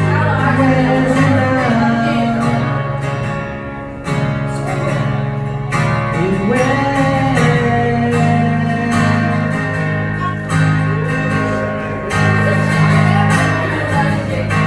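Strummed acoustic guitar with a man singing a melody over it, played live.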